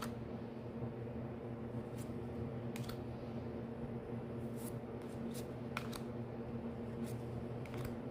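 Magic: The Gathering trading cards being handled and flipped through one at a time, with a short soft click or slide every second or so over a steady low hum.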